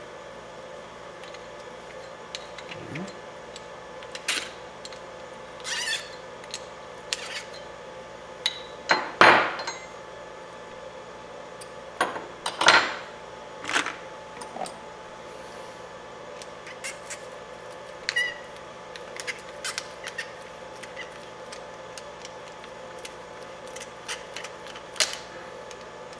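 Scattered clicks and scrapes of steel pliers gripping and working a stuck wheel hub off an RC buggy's stub axle, louder scrapes about nine and twelve seconds in, over a faint steady hum.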